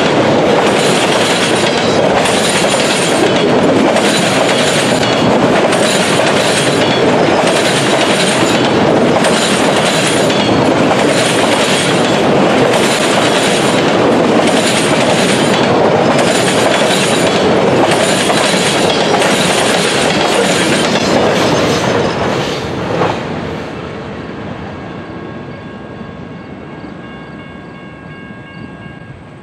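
Freight train of autorack cars rolling past at close range: a steady rumble and rush with a rhythmic clatter about once a second as each car's wheels go by. About 22 seconds in the last car passes with a sharp clack, and the sound fades away, leaving a few faint steady tones.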